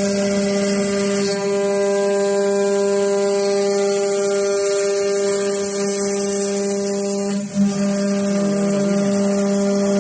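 ATC CNC machine running while milling aluminium: a steady pitched whine with a high hiss over it. It briefly dips with a knock near the end, then the tone resumes.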